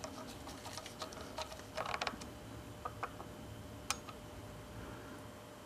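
Faint metallic clicks and taps of a screw being backed out of a hydraulic floor jack and the small parts handled. A short cluster of clicks about two seconds in and a single sharp click about four seconds in.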